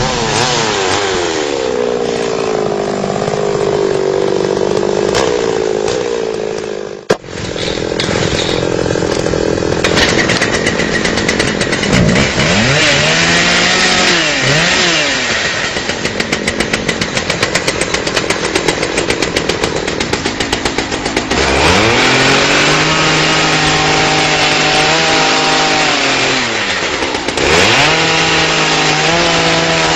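Two-stroke chainsaw running and cutting into a wooden log, its engine revved up and down several times. The sound breaks off sharply for a moment about seven seconds in.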